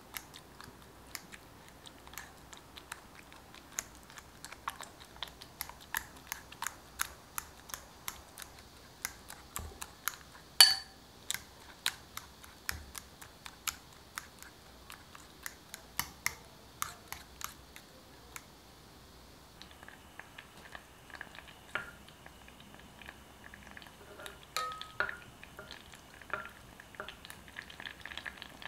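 Metal fork mashing soft roasted bananas in a glass bowl, the tines clicking and scraping against the glass in quick irregular taps, one much sharper knock near the middle. About two-thirds in, this gives way to softer clicks over a faint steady hiss as a wooden spoon stirs pieces of butter in a saucepan over a gas flame.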